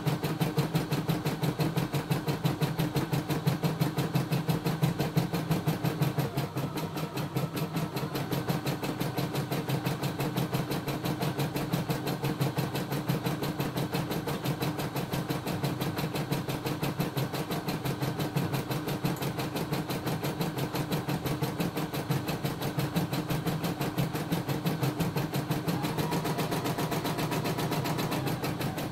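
CNY E960 computerised embroidery machine stitching a design, its needle bar running a rapid, even rhythm of strokes over the steady hum of its motor and hoop drive.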